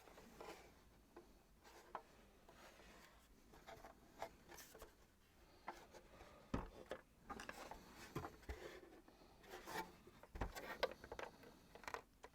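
Faint handling noises from a vacuum cleaner being dismantled: light rubbing and scraping, scattered small clicks, and a few soft knocks in the second half.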